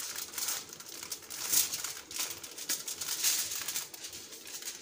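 Aluminium foil crinkling and rustling as it is folded and rolled tightly around a piece of roasted corn cob, with louder crinkles about one and a half and three seconds in.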